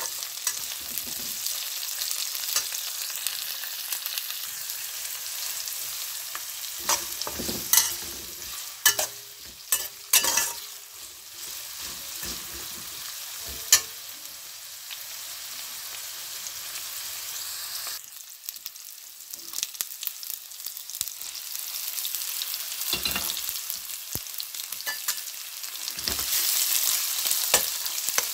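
Sliced onion and garlic sizzling in hot oil in a wok while a metal spoon stirs them, with sharp clinks and scrapes of the spoon against the pan now and then. The sizzle grows louder near the end as raw chicken pieces go into the pan.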